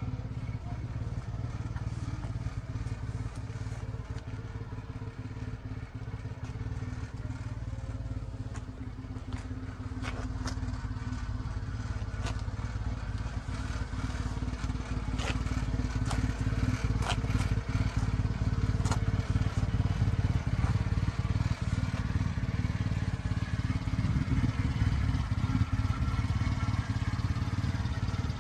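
1995 Subaru Sambar kei truck's small four-cylinder engine idling steadily, getting louder about halfway through, with a few faint clicks over it.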